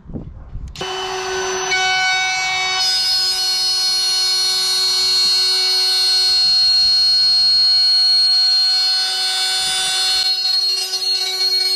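DeWalt cordless palm router switched on about a second in, its motor spinning up over the next couple of seconds to a steady high-pitched whine that holds. A lower rumble under the whine stops about ten seconds in.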